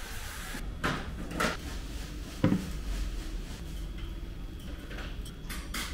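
A few short knocks and clatters, the loudest about two and a half seconds in, from a sliding glass door being opened and dishes being handled on a table, over a low steady hum of the room.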